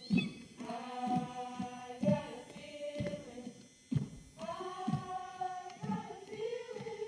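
A group of women singing together in unison in long held notes, with low thumps under the singing one or two times a second.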